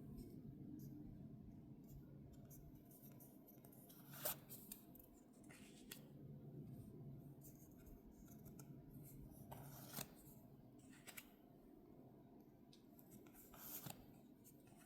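Faint handling of Pokémon trading-card booster packs and cards: scattered soft clicks and rustles over a low steady hum, with a sharper click about four seconds in and another about ten seconds in.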